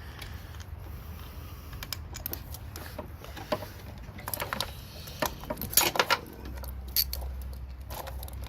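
Scattered metallic clinks and clicks of hand tools and small engine parts being handled while parts are unbolted from an engine bay. The clinks come thickest in the middle, and a low steady hum comes in past the middle.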